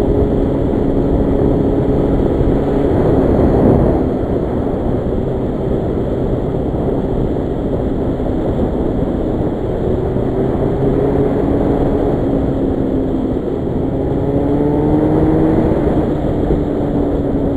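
Yamaha FZR1000 sport bike's inline-four engine running under way at road speed, mixed with heavy wind rush on the microphone. The engine note swells about three to four seconds in and then drops, and it rises slowly again near the end.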